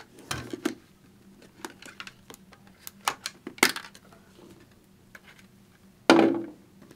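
Scattered hard plastic clicks and taps as a motorcycle helmet's face shield and side pods are handled and removed, with one louder knock about six seconds in.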